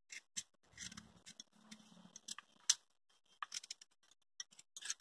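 Small kitchen knife scraping the white pith out of a raw papaya slice: faint, irregular short scrapes and clicks, one a little louder near the middle.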